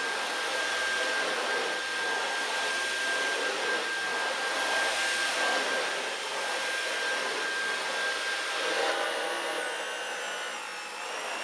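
Dyson V11 cordless stick vacuum running on boost mode over carpet: a steady high whine over rushing air. About nine seconds in the whine stops and the motor's note falls away.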